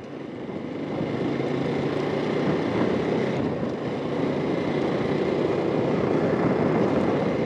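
Motorcycle, a Bajaj Pulsar NS200, running steadily under way, with road and wind noise. The sound swells about a second in and then holds.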